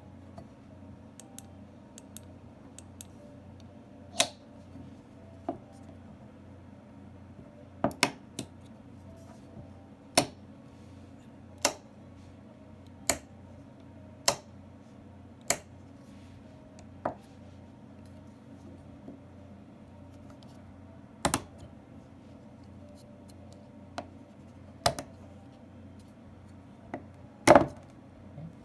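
Switches and knobs on a Su-27's Block 480-I PAROL IFF control panel being worked by hand: a string of sharp mechanical clicks, roughly one every second or so through the middle, some in quick pairs, with a louder double click near the end.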